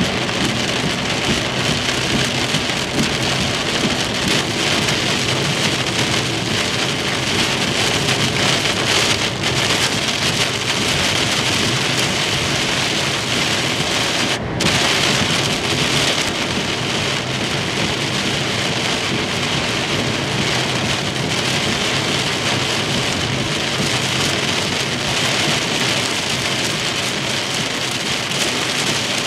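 Heavy thunderstorm rain beating on a moving car's roof and windscreen, heard from inside the car together with tyre spray on the flooded road: a loud, steady, dense hiss that briefly drops out about halfway through.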